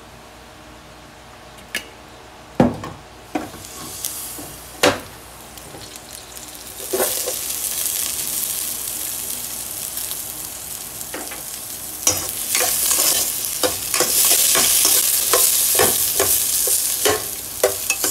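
Sliced onion frying in a little hot fat in an enamel pot. The sizzle builds from a few seconds in and grows loud about halfway through. A few sharp knocks come early on, then a utensil clicks and knocks against the pot as the onion is stirred in the second half.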